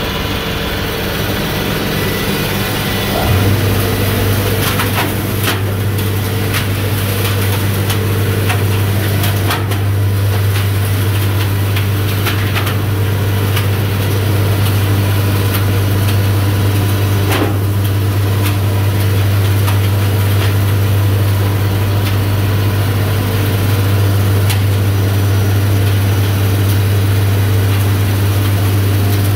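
HAMECH DF140 machine running with a steady low hum that steps up and grows louder about three seconds in, with a few scattered clicks over it.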